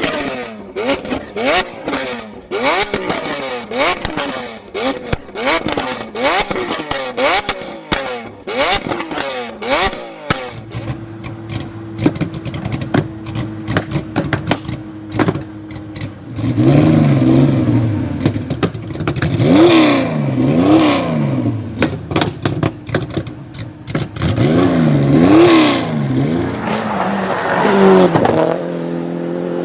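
Tuned performance car engines revved over and over. For about the first ten seconds rapid exhaust pops and crackles fire between the revs. After that an engine idles steadily, then is revved up and let fall back several times in a row.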